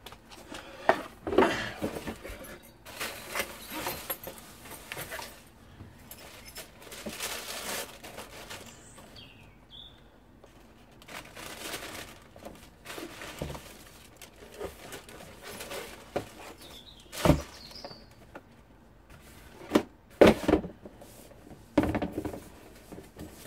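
Rustling and handling noises as a pair of trainers and their packaging are handled, with several sharp knocks, the loudest about 17 and 20 seconds in.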